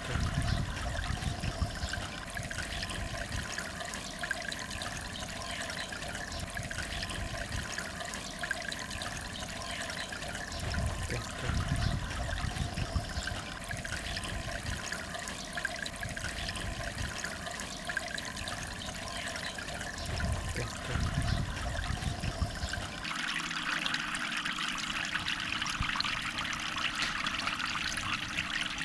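Water trickling and splashing steadily from a miniature waterfall into a small cement goldfish pond, with a few low rumbles. A little before the end the water turns brighter and hissier.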